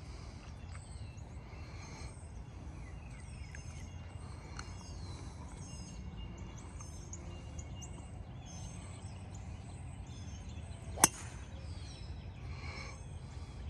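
A golf club striking a ball off the tee, one sharp crack about eleven seconds in. Behind it is steady outdoor background noise with birds chirping.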